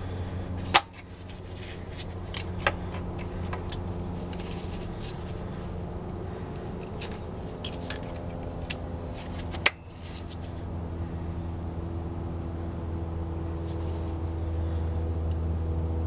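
Sharp metal clicks of locking pliers (Vise-Grips) being clamped and worked on a screw extractor stuck in a broken bolt. The two loudest snaps come about a second in and again about ten seconds in, with a few lighter tool clinks between. A steady low hum runs underneath.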